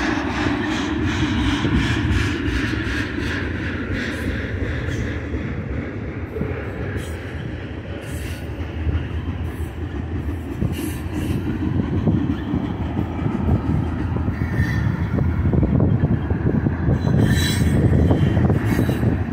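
Freight train's tank cars and autorack cars rolling past close by: a steady rumble of steel wheels on the rails, with a regular run of wheel clicks over rail joints in the first few seconds. A few brief wheel squeals come in the second half as the rumble grows louder.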